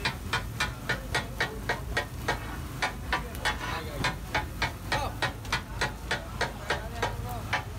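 Fish katakat being made: metal chopping blades striking a large iron griddle in a steady clatter of about three to four strikes a second as the fish is chopped and mixed.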